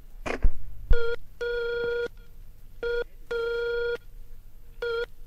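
Telephone handset clicks on the cradle, then a repeating dial tone in a short–long pattern, a short beep followed by a longer one about every two seconds, three times over: the line is ready for the next number to be dialled.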